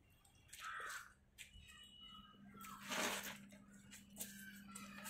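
A bird calls once about a second in, and a short noisy burst follows near the three-second mark.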